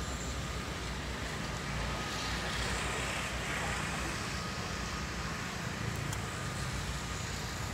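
Mini RC foam plane's small electric motor and propeller whining faintly and steadily in flight, under a steady rushing outdoor noise with a low rumble that swells about two to three seconds in.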